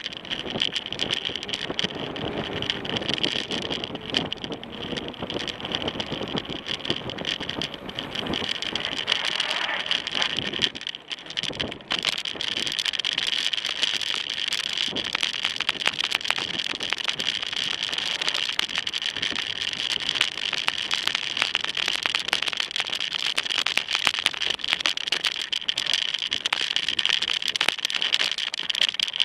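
Mountain bike ridden fast over a lane, then gravel and a dirt trail: a constant clatter of jolts and rattles with tyre noise. It eases briefly about eleven seconds in.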